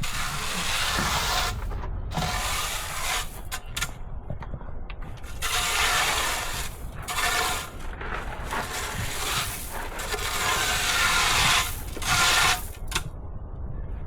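Repeated rough scraping strokes, each lasting a second or two, over a steady low rumble.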